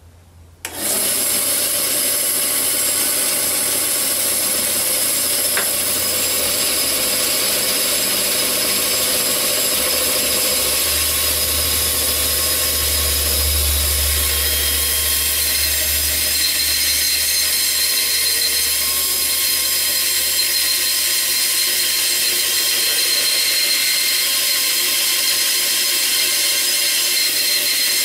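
Bandsaw switched on about a second in and running steadily at its high speed setting, its blade cutting into a 1.5-inch-thick walnut blank.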